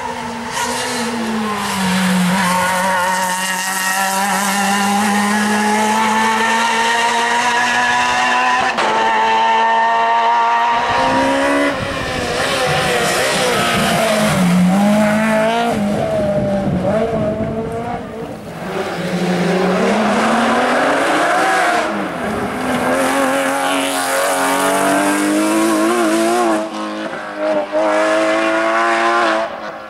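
Rally cars on a special stage passing one after another, engines at full throttle, their revs climbing and dropping sharply again and again with each gear change.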